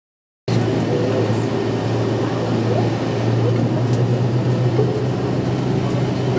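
Steady vehicle engine hum and road noise, heard from inside the vehicle, cutting in abruptly about half a second in, with faint voices underneath.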